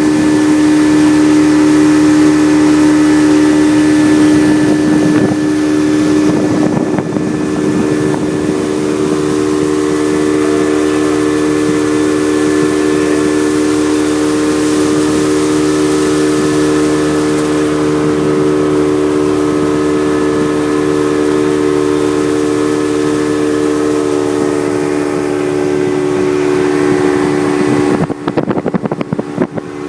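Motor launch's engine running steadily at speed, a loud even drone over rushing wind and water. Near the end the sound flutters with gusts of wind on the microphone.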